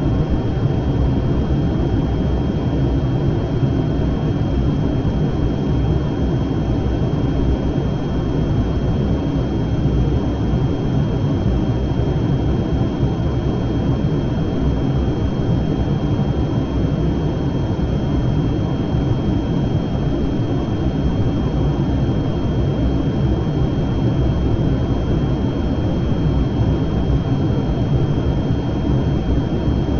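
Jet airliner engines running steadily: a loud, even rumble with a thin, steady high whine above it, holding unchanged throughout.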